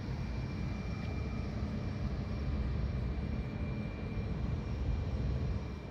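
Victory Kingpin motorcycle's V-twin engine idling: a steady low rumble.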